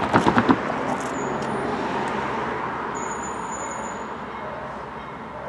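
Motor vehicle noise, a steady rumble that slowly fades away, opened by a quick run of sharp knocks.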